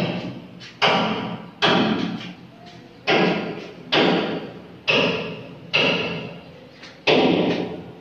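Heavy knocks, about eight in a row roughly a second apart, each starting sharply and ringing on briefly off bare walls.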